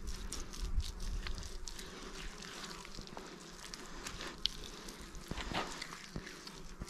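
Bare hands patting and smoothing wet soil-and-water mud around the rim of a pit, with small scrapes and scattered clicks of grit and crumbs of earth.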